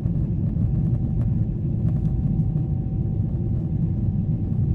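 Steady low rumble of a Boeing 777-300ER's cabin in flight, the engine and airflow noise heard from a window seat, with a faint steady high hum over it.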